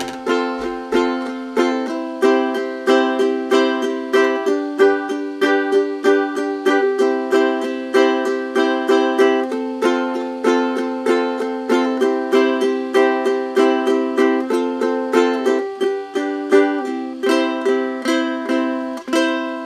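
Ukulele strummed in a steady rhythm, chords changing every second or so, with no singing; the last chord rings out near the end.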